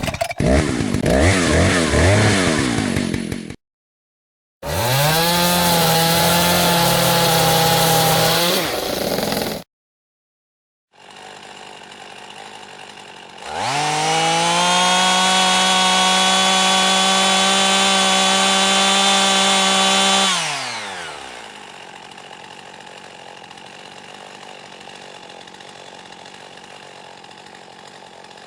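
Chainsaw engine in several separate takes with short gaps between them. First it revs up and down unevenly, then it revs up and holds high before cutting off. Last it idles, revs up to a steady high speed for about seven seconds, and drops back to idle.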